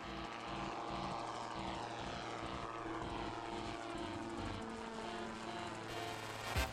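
Gyroplane's engine and pusher propeller droning as it flies past close overhead, its pitch sliding gradually lower as it passes.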